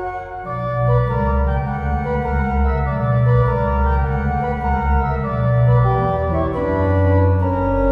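Steinmeyer pipe organ playing a chorale prelude in several voices: held and moving upper notes over a low bass line that steps to a new note every second or two.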